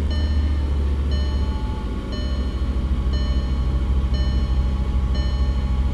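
Volkswagen Jetta engine idling just after starting, with a dashboard warning chime repeating about once a second, six times.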